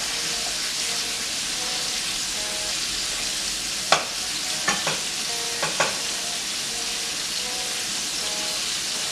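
Chicken deep-frying in a pot of hot oil, a steady sizzle, with a few short clicks about four to six seconds in.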